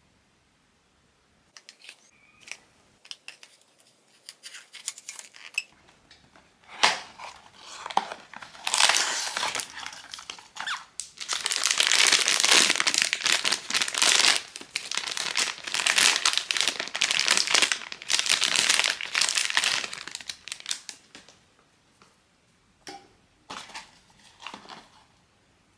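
Crinkly plastic packaging around a blind box figurine being torn open and crumpled by hand, a long dense stretch of crinkling in the middle, with small taps and rustles before and after.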